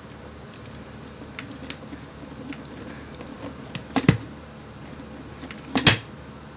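Debris being knocked out of a Black & Decker AirSwivel's plastic dust bin onto carpet: scattered light ticks as dirt falls, with two sharp knocks of the bin about four seconds in and again near the end, over a steady low hum.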